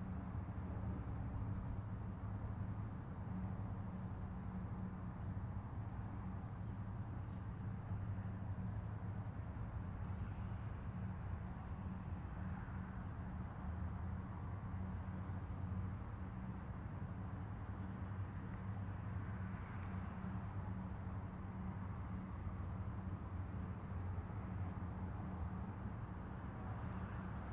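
Steady low hum with a faint, rapidly pulsing high-pitched trill running through it.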